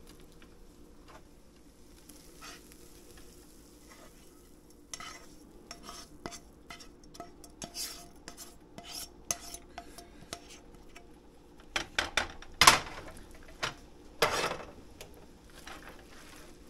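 A cooking spoon stirring spaghetti in a nonstick frying pan, with scattered clicks and scrapes against the pan and food being scraped in from a second skillet. A few sharp knocks come about twelve seconds in, followed by a longer scrape, over a faint sizzle.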